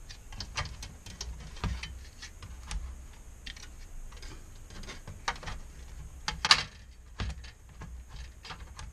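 Sheet-metal back cover of an LCD monitor being handled and fitted onto the metal chassis: irregular light clicks and knocks, with a louder clatter about six and a half seconds in.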